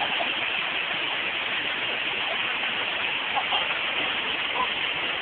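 Steady rushing of the waterfall pouring into the pool, an even, unbroken water noise.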